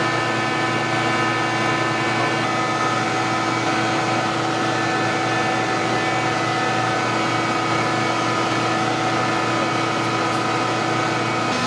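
An engine idling steadily, holding one even pitch throughout.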